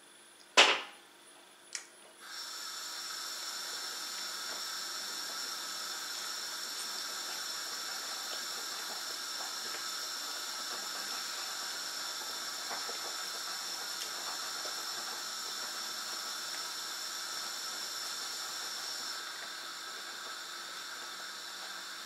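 A sharp clack, then a steady hiss with a faint fixed whine starts suddenly about two seconds in and runs on from the kitchen stove, where a pot is coming to the boil.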